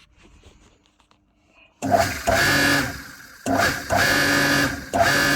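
The boat's electric wastewater pump motor running in three short bursts of about a second each, starting and stopping abruptly with a steady whirr. The pump spins freely now that its stiff shaft has been freed up.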